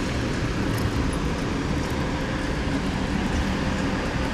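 Steady city-street traffic noise from passing vehicles, heaviest in the low end.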